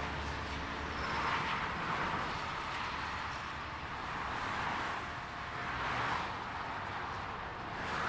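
Motorway traffic of cars and lorries: a steady rush of tyre and engine noise that swells and fades several times as individual vehicles pass close by.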